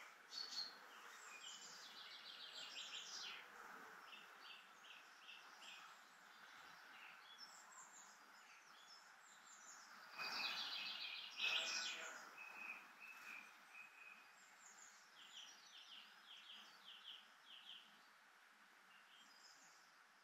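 Faint birdsong: several songbirds giving short chirping phrases and runs of quickly repeated notes, loudest about ten to twelve seconds in, over a faint steady hiss of outdoor ambience.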